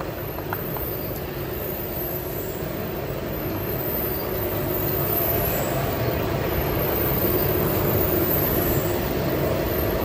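Rotary drum carbonization furnace and its drive running: a steady mechanical rumble and hum that grows slightly louder.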